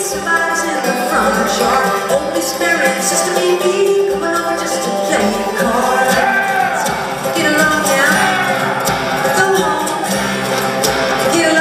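Live bluegrass-style band playing a song: a woman singing lead over five-string banjo, guitar and upright bass.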